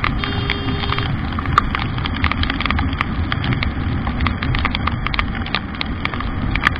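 Wind and road noise on a Bajaj Pulsar NS200 motorcycle riding at speed in heavy rain, with raindrops striking the camera as irregular sharp ticks. A faint brief tone sounds in the first second.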